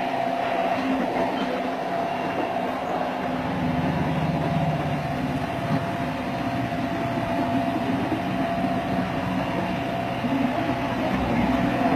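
A small earthmoving machine running steadily, its engine rumbling with a thin, steady whine over it.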